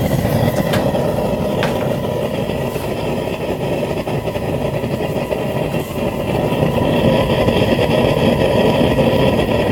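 Propane forge burner running with a steady rushing flame noise while heating the forge. Two light clicks about one and two seconds in.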